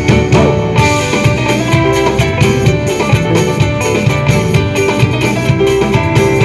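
Live band playing an instrumental passage between vocal lines, with guitar over a steady drum beat.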